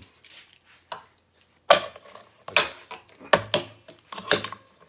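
Hard objects being handled on a workbench: about six sharp knocks and clicks, the loudest about two seconds in.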